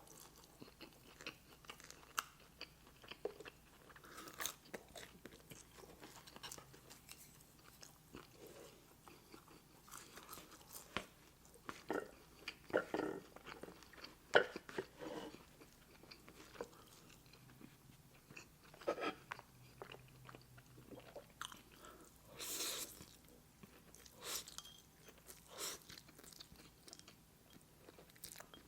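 A person chewing and biting food up close to the microphone, with soft, irregular crunches and mouth smacks.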